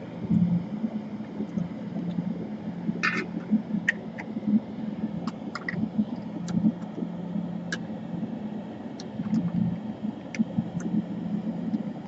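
Small, sharp clicks and taps of hand tools on laptop parts, scattered irregularly, over a steady low hum.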